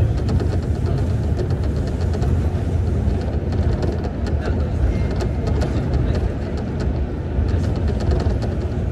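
Tokyo Monorail train running along its Alweg beam on rubber tyres, heard inside the car: a steady low rumble with faint irregular ticks and rattles over it.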